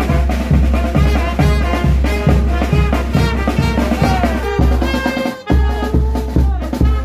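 Brass band playing a cumbia tune: a brass melody over a steady bass-drum beat about twice a second. The music briefly cuts out about five and a half seconds in, then comes back in on the beat.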